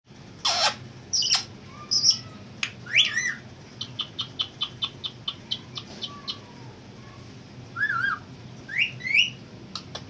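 Rose-ringed parakeet calling: several loud short squawks and chirps that sweep up and down in pitch, with a run of quick short clicks, about four a second, in the middle and again near the end.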